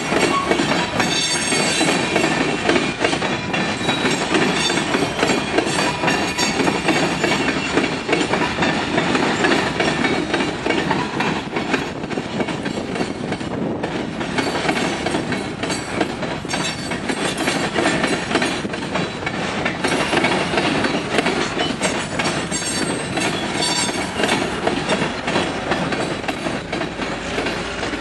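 Covered hopper cars of a freight train rolling past, their steel wheels clattering steadily over rail joints and a track-crossing diamond.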